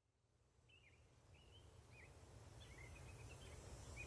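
Outdoor ambience fading in from silence about a second in: a low steady rumble with faint, scattered bird chirps.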